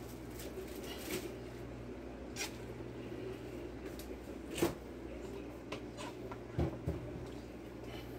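Wooden spoon stirring and pressing shredded turkey and banana blossom down into the broth of a stainless steel pot, with a handful of irregular knocks and clicks against the pot over a steady low hum.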